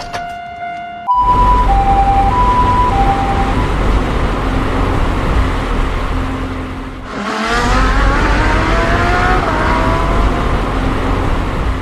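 Loud vehicle sound effects: a heavy low rumble that starts about a second in, with a high-low two-note tone alternating twice just after it starts, then a brief dip and a rising whine climbing in pitch about seven seconds in.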